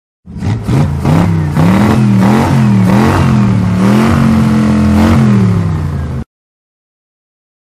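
Engine sound effect for a cartoon monster truck, revving up and down several times, then cutting off suddenly near the end.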